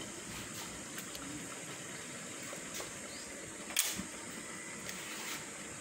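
Low steady hiss of a lit gas stove burner under a covered pot, with one sharp click just before four seconds in.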